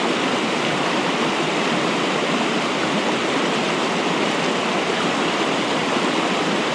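Fast-flowing mountain river rushing over rocks: a steady, even rush of water that does not change.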